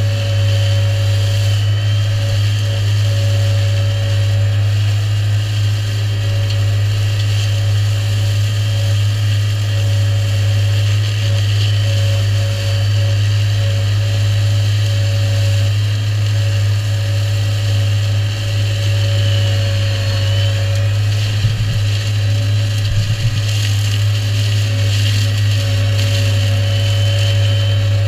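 New Holland tractor engine and a Shelbourne hedge-cutter's flail head running steadily while mowing ditch-bank grass: a constant low drone with a high whine over it. A few light knocks come about three-quarters of the way through.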